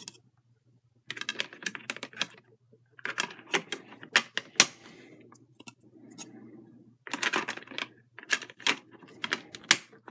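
Plastic clicking and clatter of DVDs being pried off the snap-in centre hubs of a stacked multi-disc case, the discs knocking against each other. The clicks come in four quick clusters with short pauses between them.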